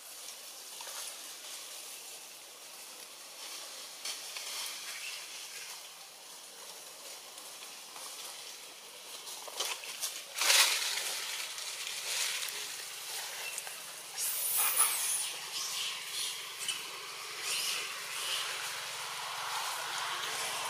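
Outdoor forest ambience: a steady high hiss with scattered rustles and snaps of leaves and branches. The loudest rustle comes about ten seconds in, and a brief high-pitched burst follows a few seconds later.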